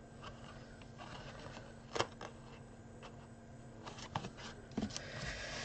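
Card stock being folded and pressed into a small box base by hand: faint rustling and creasing, with a sharp click about two seconds in and several light taps and rustles near the end.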